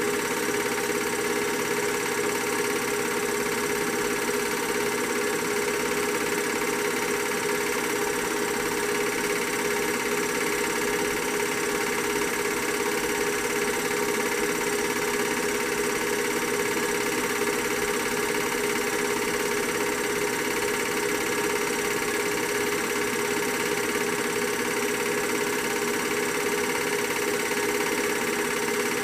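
Steady mechanical whirring hum with a constant tone, unchanging throughout: the running noise of a film projector.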